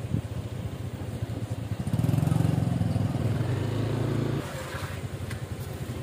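Motor scooter engine running at low speed, rising for a couple of seconds in the middle and then dropping back to a low idle about four seconds in as the scooter rolls to a stop.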